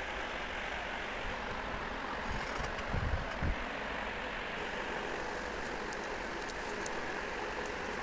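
Steady rushing background noise, with a few light clicks and two dull knocks about three seconds in as a table fan's plastic back cover is pulled off its housing.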